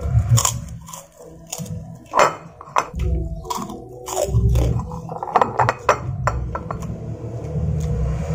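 A person eating rice and beef with his fingers close to the microphone: chewing and biting, with many short sharp mouth clicks, over a low rumble that comes and goes.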